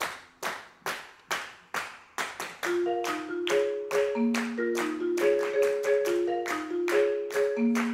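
Ensemble players clapping a steady beat, a little over two claps a second. About two and a half seconds in, a marimba joins with a repeating pattern of notes over the claps.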